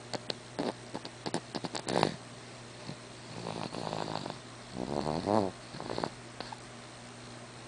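Snoring in sleep: two drawn-out, buzzy snores about three and five seconds in, the second louder, after a run of short clicks and snuffles.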